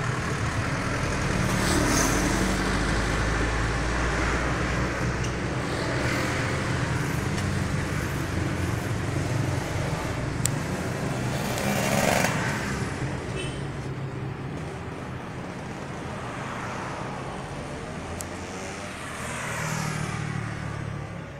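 Road traffic: motor vehicles running by, several swelling and fading as they pass, over a steady low engine hum.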